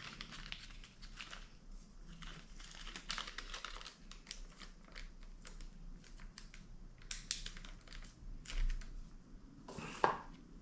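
Small plastic accessory bags crinkling and rustling as hands pick through helmet-intercom mounting parts, in irregular short bursts. About ten seconds in, a sharper knock as the white cardboard product box is handled.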